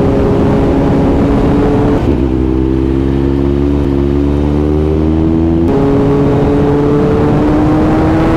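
Kawasaki Z900's inline-four engine under acceleration, rising steadily in pitch, with upshifts about two seconds in and again near six seconds where the pitch drops before it climbs again.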